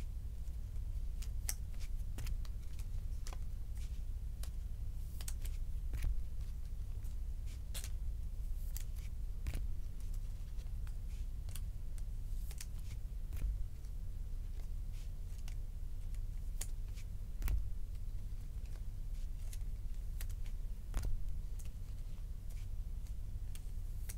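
Glossy Topps Chrome baseball cards being flipped through by hand: irregular crisp snicks and clicks as each card slides off the stack, over a steady low hum.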